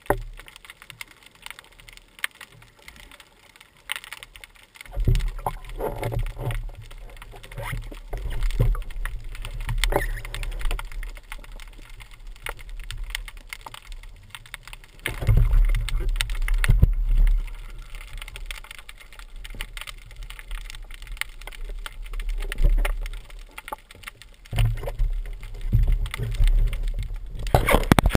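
Underwater sound picked up by a camera in a waterproof housing: a low water rumble that swells and fades, strongest about halfway through, with many scattered small clicks and crackles.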